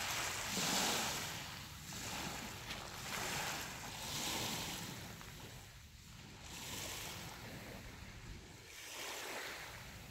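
Small lake waves lapping and washing onto a pebbly sand shore, each wash swelling and fading every second or two.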